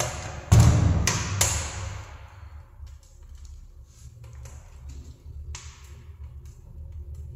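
Firewood burning in a masonry stove's firebox, crackling with scattered pops over a low steady rumble. A thump and a couple of sharp knocks come in the first two seconds.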